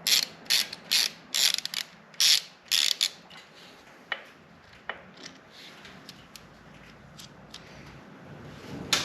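Hand ratchet fitted with a 3/16 Allen bit, clicking in short back-and-forth strokes, about eight in the first three seconds, as a bolt on the shift lever is backed out. After that it goes quieter, with a couple of single light clicks.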